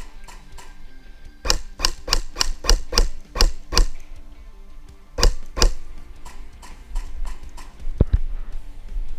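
Airsoft electric rifle firing single shots: a quick string of about eight sharp cracks at roughly three a second, then two more, then a lone knock near the end. Background music with guitar plays underneath.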